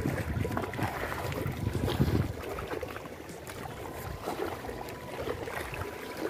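Wind buffeting the microphone over choppy seawater, strongest in the first two seconds, with faint scattered clicks from a spinning rod and reel being handled.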